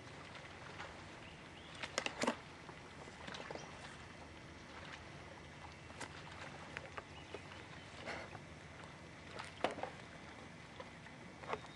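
A boat's motor humming low and steady, with a few sharp knocks and taps scattered through, the loudest about two seconds in.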